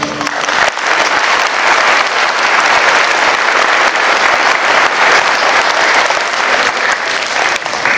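Audience applauding, the clapping beginning to die down near the end.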